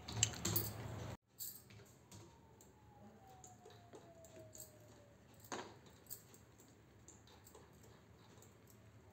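A loud rustling burst that cuts off abruptly about a second in, then faint scattered clicks and clinks of bangles on the wrists as hands tear a piece of stuffed cheela over a ceramic plate.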